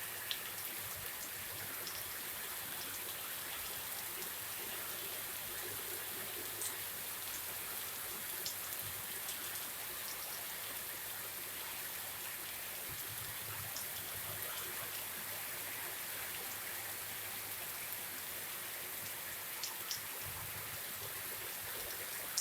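Heavy rain falling steadily, an even hiss with a few sharp drip ticks here and there.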